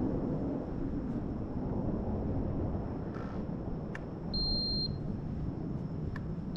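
A quadcopter's Pixhawk flight-controller buzzer gives a short, high, steady beep about two-thirds of the way in, and a second beep starts right at the end. A faint click comes just before each beep, over steady wind noise on the microphone.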